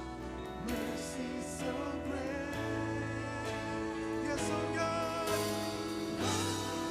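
Slow, gentle music with a singing voice over long held low notes.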